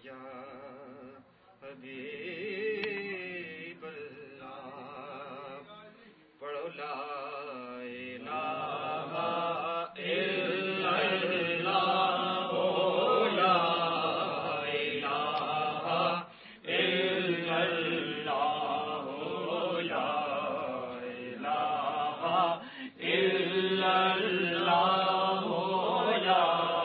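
Men's voices chanting devotional verses with a wavering pitch: one voice at first, then from about six seconds in a louder, fuller chant in repeated phrases with short breaks between them.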